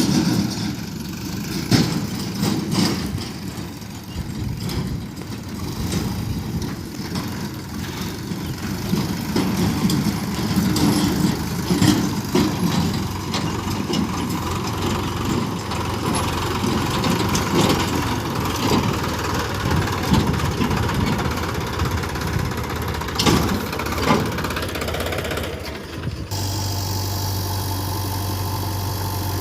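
Diesel engines of a backhoe loader and tractor running under changing load, with several sharp knocks and clatters. Near the end the sound changes abruptly to a steady, even engine hum.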